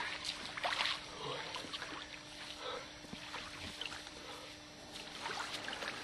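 Bare feet splashing through shallow lake water, loudest in the first second, then fainter steps and small water sounds as the wader comes out onto the shore.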